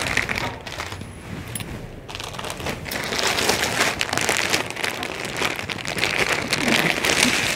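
Clear plastic garment packaging crinkling and rustling as a packed suit is pulled out and handled, thickest in the second half.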